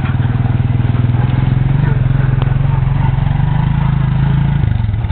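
Quad (ATV) engine running steadily at low revs with a fast, even pulse, easing off slightly near the end.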